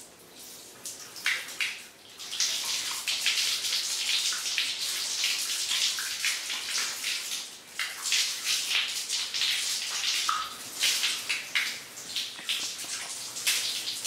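Water running from a rubber garden hose and splashing over hands being washed under it, an uneven hiss that grows louder about two seconds in.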